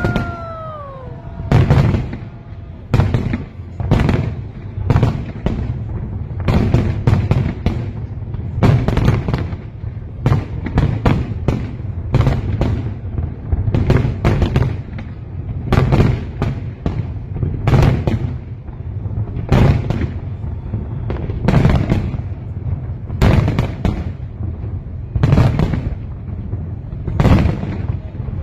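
Fireworks display: aerial shells bursting in quick succession, sharp bangs every half second to second over a continuous low rumble of echoing explosions.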